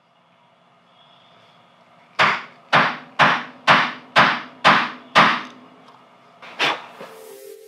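A run of seven sharp wooden knocks, evenly spaced at about two a second, then a single knock a second later. Near the end a steady tone with a hiss begins.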